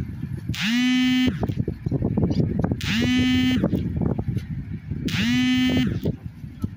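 Ship's horn on a maneuvering tugboat sounding short blasts, three times, each about two-thirds of a second, rising in pitch as it starts and sagging as it stops, over a steady low rumble of engine and wind.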